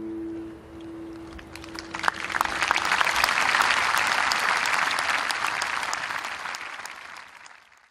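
The last acoustic guitar chord rings out and fades, and about two seconds in an audience starts applauding. The clapping swells and then dies away near the end.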